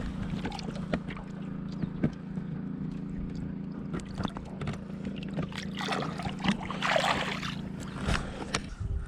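Water sloshing and splashing around a small fishing boat, with a louder splash about six seconds in. Throughout there is a steady low hum and scattered light knocks against the boat.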